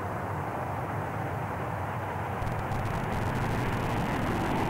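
McDonnell Douglas YC-15 prototype's four jet engines at takeoff power as it lifts off: a steady rushing jet noise that grows a little louder toward the end.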